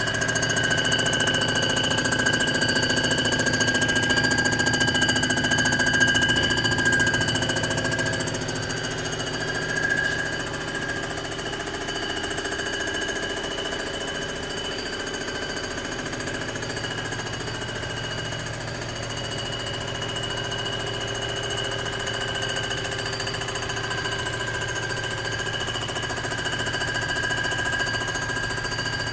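Comec ACF200 surfacing machine running a milling pass across a Rambler 327 cylinder head: a steady motor hum with several high, ringing whine tones from the cutter. It is louder for the first several seconds and eases a little about ten seconds in.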